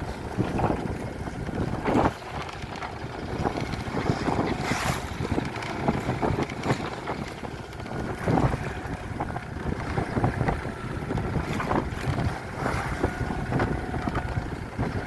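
Choppy water slapping and splashing against a boat's hull as it moves along, in irregular splashes every second or two, with wind buffeting the microphone.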